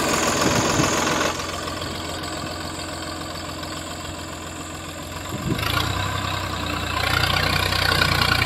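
Swaraj 744 tractor's three-cylinder diesel engine running, easing off about a second in and picking up again from about five and a half seconds, then working harder near the end. The engine is under load as one rear wheel, the other side braked, spins and digs into loose sandy soil.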